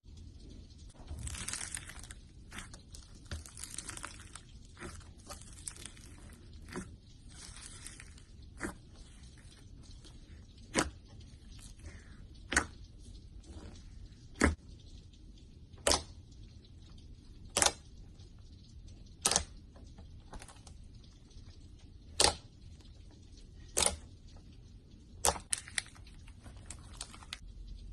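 Slime being handled: soft crackly stretching and squishing for the first several seconds, then a run of about ten sharp pops, one every second and a half or so.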